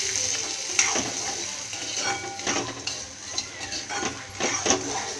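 Metal spatula scraping and clinking irregularly against a kadai as lentils, green chillies, onion and grated coconut are stirred and sautéed, over a light sizzle of hot oil.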